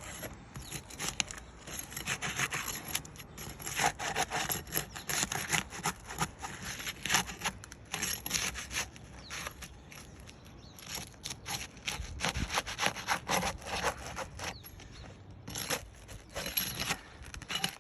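Asphalt roof shingle being worked loose and peeled up, with a long run of irregular scraping and rubbing strokes as it is pulled free of the shingles around it.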